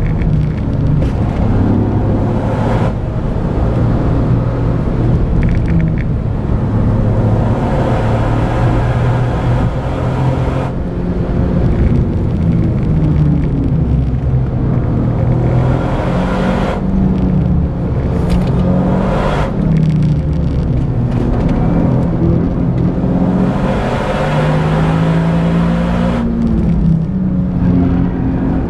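Toyota GR Yaris's 1.6-litre turbocharged three-cylinder engine driven hard on track, heard from inside the car. The engine note climbs and drops again and again, easing off briefly several times, with steady road noise underneath.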